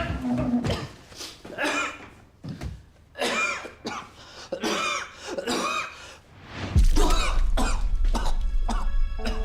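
A man coughing in a run of harsh, throaty fits, about six separate bouts with short pauses between them. About seven seconds in, dramatic background music with a deep low rumble comes in.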